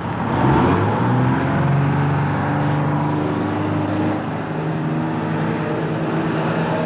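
Bus engine running: its note rises over the first second, then runs on steadily with small shifts in pitch.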